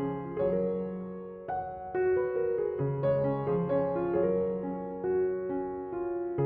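Background piano music: a slow run of single notes and chords, each struck and left to ring.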